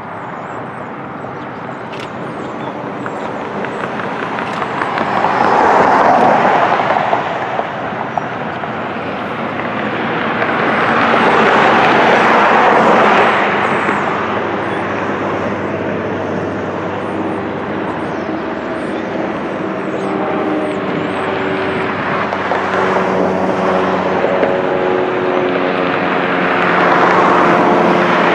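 Jet engines of a twin-engine widebody airliner landing: a steady rushing roar that swells loudly three times, around six seconds in, again at about twelve seconds just after touchdown, and near the end, with a steady engine whine coming through in the second half as it rolls out.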